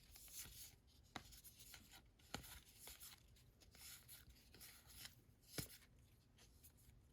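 Faint sliding and rubbing of baseball trading cards being handled and flipped through, with a few sharp clicks of card edges.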